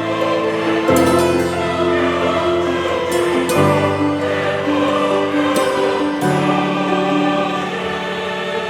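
Background music: a choir singing sustained chords that change every second or two.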